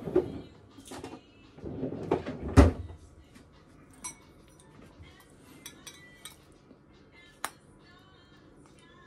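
Tableware being handled: a fork clinking against a ceramic bowl and plate, with one sharp knock of a dish about two and a half seconds in, then a few faint clicks.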